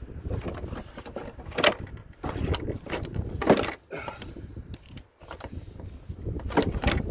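Knocks and scrapes of a car battery being worked down into its tray, its case bumping against the tray and surrounding parts at irregular moments. The loudest knocks come about one and a half and three and a half seconds in.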